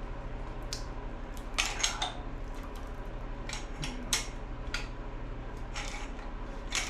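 Hand tools clinking against metal while working a stubborn exhaust manifold bolt: about eight sharp, irregular metallic clinks, over a steady low hum.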